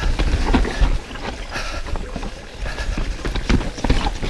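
Mountain bike descending rough, rocky and rooty trail: a steady run of knocks and rattles as the tyres, suspension and drivetrain hammer over rocks, with low wind rumble on the camera's microphone.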